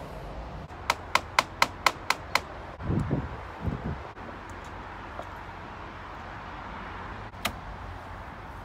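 Hammer tapping a bent steel nail to straighten it: six quick light taps, about four a second. Then two dull thumps and, near the end, one more sharp knock.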